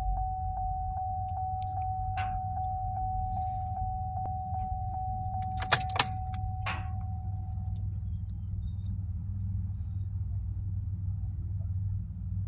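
A parked car's warning chime beeping rapidly, about three times a second, then stopping about eight seconds in, over a steady low rumble. Two sharp clicks come near the middle.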